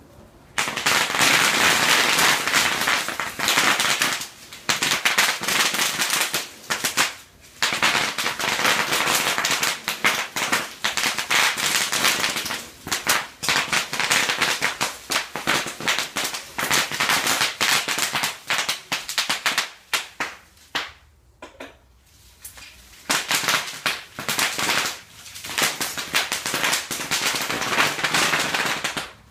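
Bubble wrap popping in rapid-fire runs under the wheels of a roughly 300-pound electric wheelchair, like a machine gun or a string of firecrackers. The popping drops off briefly about a quarter of the way through and for about two seconds two-thirds of the way through, then picks up again.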